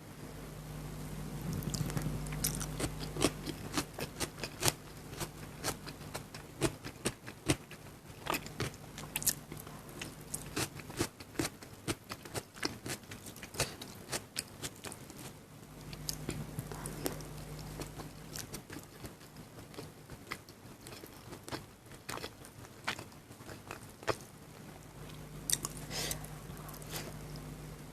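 Close-miked eating of chicken biryani and salad: chewing and biting, with crunches and many small, irregular mouth clicks.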